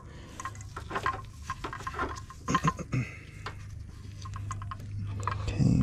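An ABS control module being worked onto the metal hydraulic unit by hand, giving scattered light clicks, taps and scrapes of the plastic housing against metal, with a louder low thud near the end.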